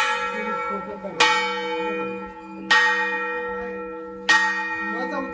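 Large 750 kg five-metal (panchdhatu) temple bell struck four times, about one and a half seconds apart. Each stroke rings on with a deep hum and bright, steady overtones that carry into the next stroke.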